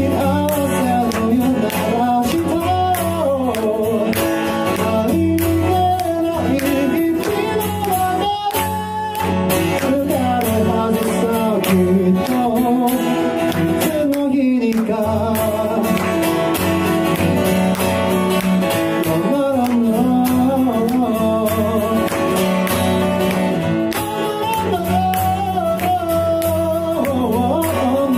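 A song playing: a singing voice carrying a melody over guitar accompaniment.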